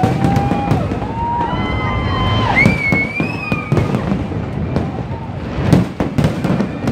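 Aerial fireworks display: shells bursting in rapid, overlapping bangs and crackles, with high sliding tones over them in the first few seconds and one loud bang near the end.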